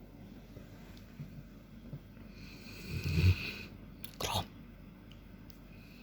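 Adolescent Cane Corso dog snoring in its sleep: a low, rough snore swells to a loud peak about three seconds in, and a short sharp burst of noise follows about a second later.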